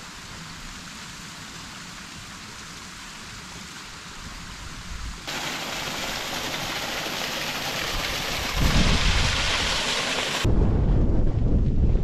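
A fainter steady hiss, then from about five seconds in the loud, steady rush of a small waterfall. Near the end, heavy low rumbling of wind buffeting the microphone takes over.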